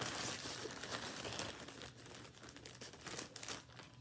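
Plastic packaging bag crinkling as it is handled and opened, loudest in the first second and a half, then lighter crinkles.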